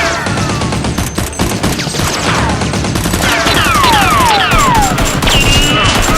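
Dubbed gunfire sound effects, rapid volleys of shots, over action background music. From about halfway in, falling whistle-like tones repeat roughly twice a second.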